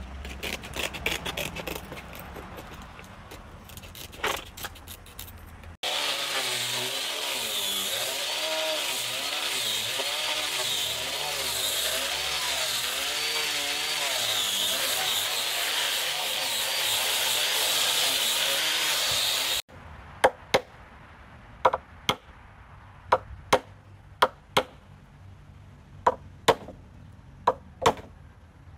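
Scissors snipping through sandpaper. About six seconds in, a hand-held power sander with a round sanding disc comes in abruptly and runs on a wooden bed panel for about fourteen seconds, its pitch wavering as it is pressed, then cuts off. About a dozen sharp hammer taps follow, driving small nails into the wooden bed rail.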